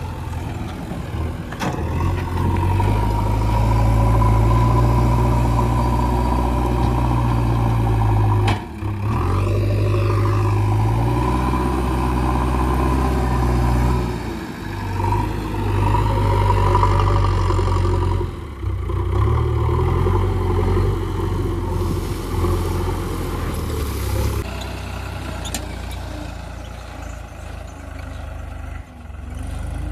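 Heavy diesel machinery engines running hard, revs rising and falling with several brief drops, as a JCB backhoe loader and a New Holland tractor work to free the tractor from mud.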